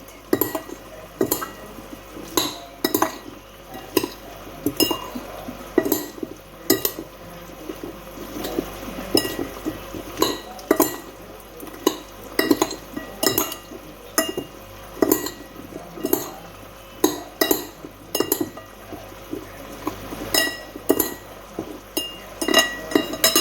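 Cutlery clinking against a dish in irregular taps, about one or two a second, as food is mixed.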